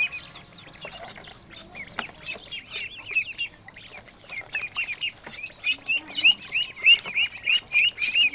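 Several ducklings peeping: a continuous stream of short, high-pitched peeps, several a second and overlapping.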